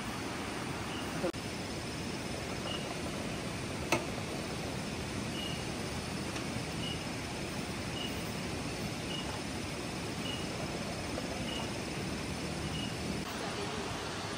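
Steady hissing outdoor background with a short high chirp repeating about every two-thirds of a second, and a faint thin high whine through much of it. Two sharp clicks come just over a second in and about four seconds in.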